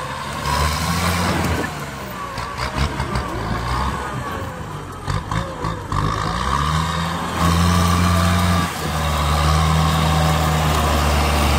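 Kubota tractor's diesel engine working under load as its front blade pushes a heap of uprooted roots and brush, with the engine pitch rising and falling. Sharp cracks of branches snapping come in the middle, then the engine runs louder and steadier near the end.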